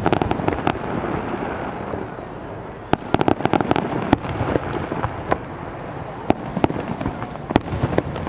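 Fireworks display: aerial shells bursting as a series of sharp bangs, with dense runs of rapid reports at the start and again about three seconds in, and single bangs scattered through the rest.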